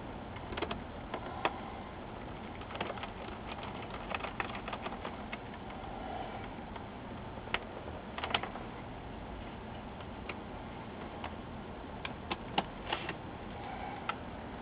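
Scattered light plastic clicks and taps of fingers and a small precision screwdriver working at a laptop's screen bezel while the bezel screws are taken out, over a faint steady low hum. The clicks come irregularly, with small clusters about a second in, around eight seconds and near the end.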